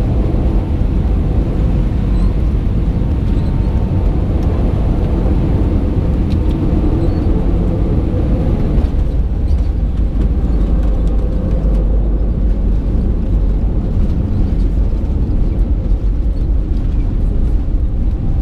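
Airbus A319 cabin noise during landing, heard from a window seat over the wing: a steady, loud rush of airflow and engine noise. About halfway through there are a few brief knocks as the aircraft touches down, and the sound then carries on as it rolls out on the runway.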